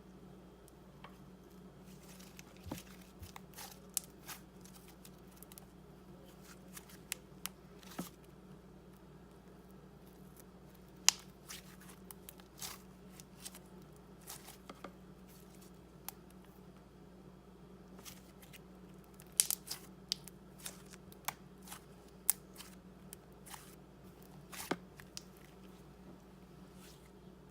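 Homemade slime being kneaded and stretched by hand, giving off irregular sticky clicks and snapping pops, some much sharper than others.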